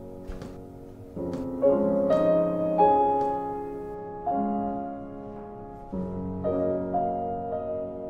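Slow instrumental music on a keyboard instrument: chords struck every half second to a second and a half and left to ring.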